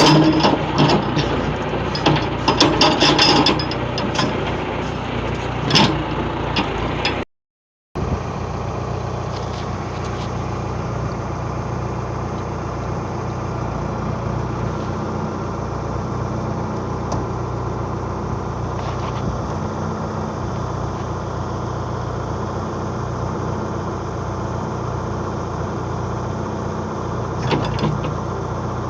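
Backhoe's diesel engine running steadily, with loud metallic clanks and crunches during the first few seconds and once more about six seconds in. It cuts to silence for a moment about seven seconds in, then the engine runs on alone.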